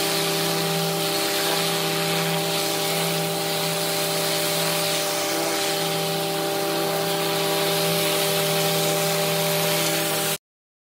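High-pressure water wand blasting into a hole in pavement: a steady loud hiss with a constant machine drone underneath. It cuts off suddenly about ten seconds in.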